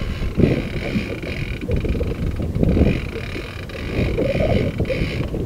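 Gusty wind buffeting the microphone aboard a boat at sea, in uneven low rumbling surges over a steady higher hiss.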